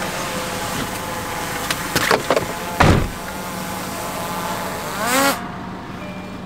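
Car noise: a steady engine and road hum and hiss. A few knocks come about two seconds in, a heavier thump just before three seconds, and a short rising squeal near five seconds, after which the hiss suddenly drops.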